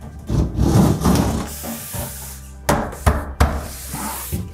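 A large epoxy-coated foam-board shower panel being worked into a tight shower stall: rustling and scraping as it is pushed along the walls, then three sharp knocks about three seconds in as it bumps into place.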